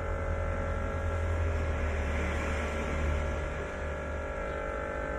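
Speakers of a home-built miniature sound system putting out a steady low mains hum, with faint steady whine tones above it and no music playing. The hum comes from the boy's home-built power amplifier and stays even when music plays.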